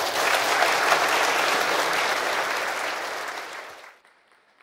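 Audience applauding. The clapping is full at first, thins out from about three seconds in and cuts off suddenly about four seconds in.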